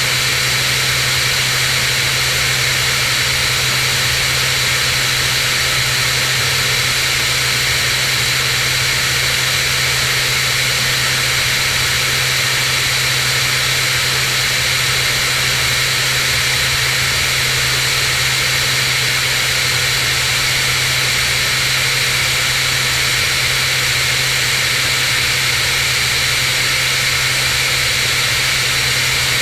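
Cirrus SR22's six-cylinder Continental piston engine and propeller running steadily in flight, a constant drone with a rushing hiss over it.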